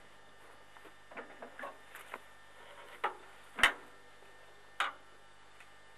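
Someone climbing up onto the seat of a tractor whose engine is not running: a string of light scuffs and knocks, then three sharper knocks, the loudest a little past halfway and the last near the end.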